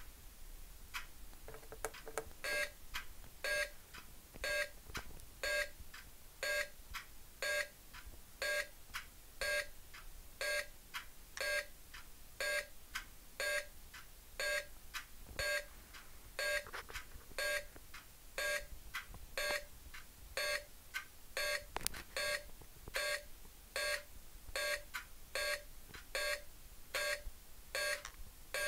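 Replica Predator wrist-bomb prop beeping its self-destruct countdown: a short low tone about two seconds in, then a steady electronic beep about once a second.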